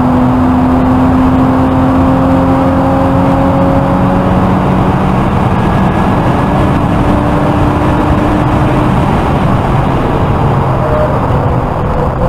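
1999 Porsche Boxster 986 2.5's flat-six engine at high revs under full throttle, heard from inside the cabin over wind and tyre noise. Its pitch climbs slowly through a long pull in one gear. After about nine seconds the engine note fades and the revs ease off near the end as the car slows.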